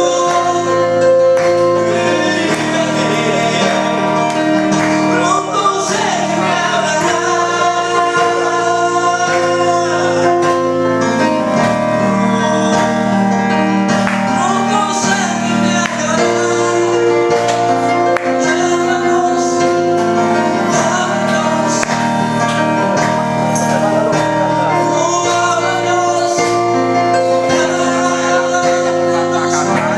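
Christian worship song: singing over instrumental accompaniment, with long held notes.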